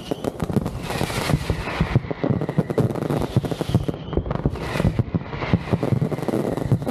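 Aerial fireworks show by Pirotecnia Vulcano: a dense, rapid barrage of bangs and crackling, with a few short whistles among them.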